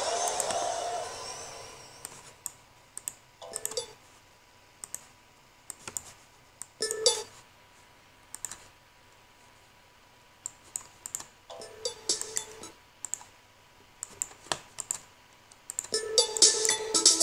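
Computer keyboard typing and clicking in scattered short runs, while children's music from the computer's speakers fades out over the first two seconds. Music starts again near the end.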